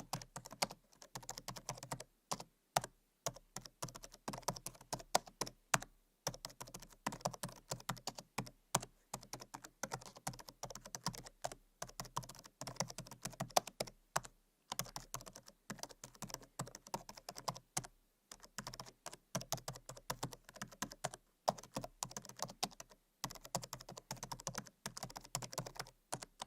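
Typing on a laptop keyboard: rapid runs of light key clicks with short pauses between bursts.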